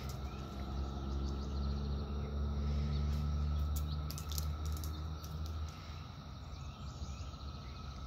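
A steady, high, thin insect drone in the background, with a loud low hum that swells and then drops away sharply about six seconds in, and a few light clicks.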